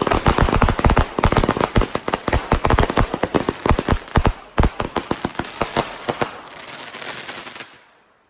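Consumer fireworks going off in a rapid barrage of sharp bangs, many a second, that thins out after about six seconds into fading crackle and dies away near the end.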